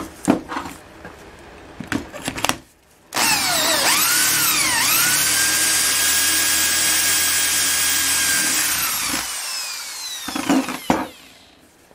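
Corded electric drill spinning up and boring through the plastic packed in a sledgehammer head's handle eye. Its motor whine dips twice as the bit bites, runs steady for about four seconds, then winds down. Short knocks and clatter from handling the hammer head come before and after the drilling.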